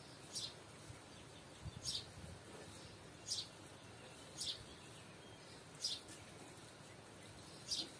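A bird chirping repeatedly: six short, high single chirps, each dropping slightly in pitch, about one every second and a half, over a faint outdoor background.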